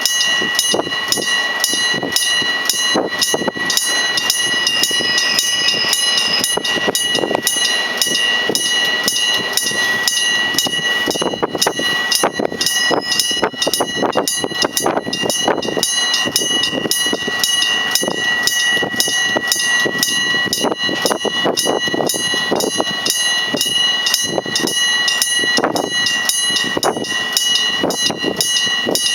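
Electric bell of a railway level crossing ringing continuously, struck in a rapid, even clatter with a steady metallic ring, while a train runs through the crossing.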